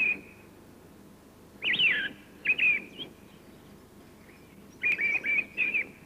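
A songbird singing short, clear phrases with pauses between them: one about two seconds in, another half a second later, and a longer run of repeated notes about five seconds in.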